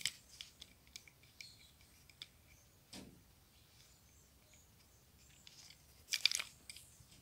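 Faint handling noises as fingers rub and move a small die-cast toy car on a woven rug: scattered small clicks, a light knock about three seconds in, and a brief scratchy rustle about six seconds in.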